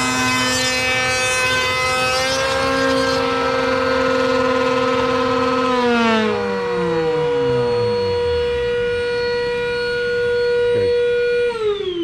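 Router in a router table running at high speed, cutting a rabbet around a plastic speaker adapter ring. About halfway through one motor is switched off and winds down with a falling whine. A second steady motor whine carries on and winds down the same way near the end.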